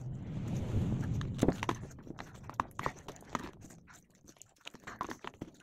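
Two people eating instant noodles fast with forks: slurping and chewing, with a noisy rustle in the first couple of seconds and then scattered clicks of the forks against plastic bowls.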